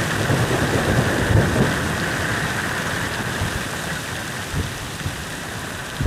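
Heavy rain pouring steadily onto a muddy forest floor and puddles, with a low rumble underneath. It eases a little toward the end.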